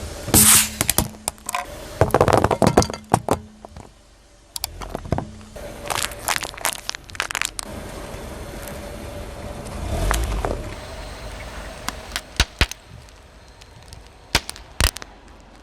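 Plastic toy cracking and snapping as a car tyre rolls over it and crushes it. It comes in several clusters of sharp cracks, with a low rumble of the tyre rolling about ten seconds in.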